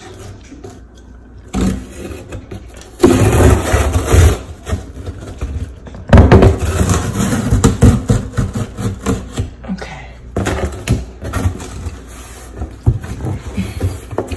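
Fingers scratching and picking at packing tape on a large corrugated cardboard box, with cardboard scraping and rubbing as the box is handled. It comes in three loud stretches of scratching, starting about three, six and ten seconds in.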